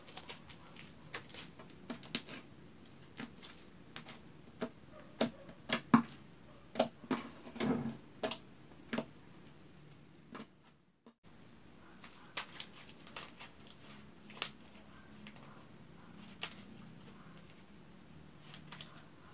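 Pink glue-and-detergent slime being kneaded and stretched by hand, giving off irregular sticky clicks and pops. They come thickest and loudest in the middle, then thin out to fainter ones.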